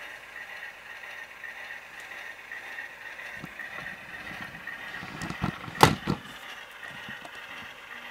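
Overland RS3 model locomotive running on track, its Tsunami sound decoder playing a diesel engine sound through the model's onboard speaker, a steady running sound with an even pulse. A sharp knock about six seconds in, with a couple of lighter ones around it.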